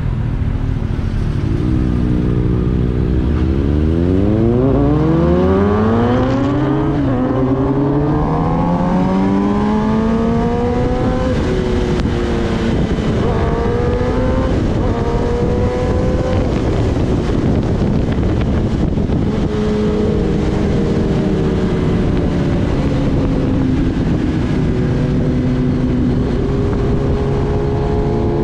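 Kawasaki Ninja ZX-10R's inline-four engine pulling away from low revs, its note climbing steeply with a gear change about seven seconds in and another around eleven seconds, then holding a steadier cruising note that eases slowly up and down, with wind rush behind it.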